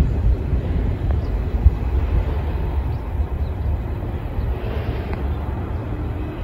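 115-series electric multiple unit pulling away and receding down the line, a steady low rumble of its wheels and motors.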